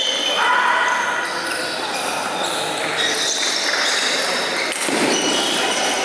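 Table tennis balls clicking off tables and bats at several tables at once, echoing through a large sports hall, with voices in the background.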